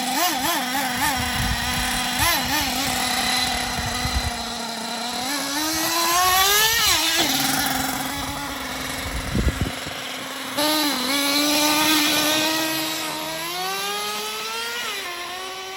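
A nitro RC monster truck's small glow engine revving up and down as the truck is driven, its whine climbing to a peak and dropping off about halfway through, then climbing again. Low rumbles come in the first few seconds and again a little past the middle.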